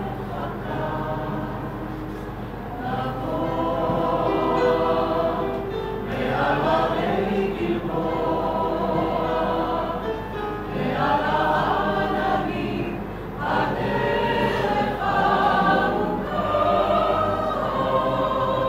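Mixed choir of men's and women's voices singing in harmony, in phrases that swell and ease every few seconds.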